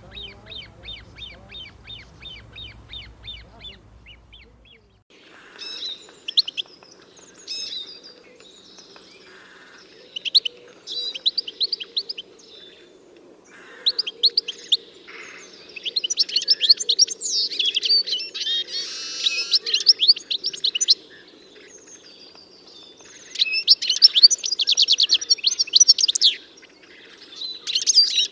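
Wild birds singing. For the first few seconds one bird repeats a quick high note about five times a second. After an abrupt change, several birds chirp, whistle and trill over one another, with loud rapid trills in the second half.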